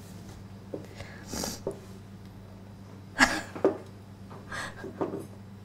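A woman crying: several short sniffs and shaky sobbing breaths, the loudest about three seconds in, over a low steady hum.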